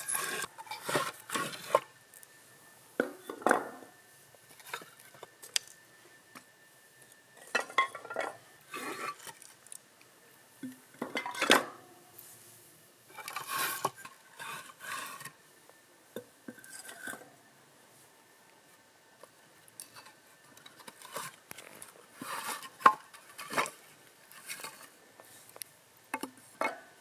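Dishes, pots and utensils being handled, clinking and clattering in scattered short bursts with quiet gaps between them.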